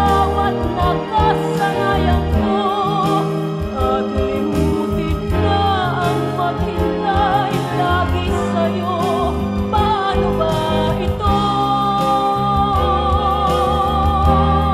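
Karaoke backing track of a Filipino ballad: chords and bass under a lead melody line with vibrato, which holds a long note near the end.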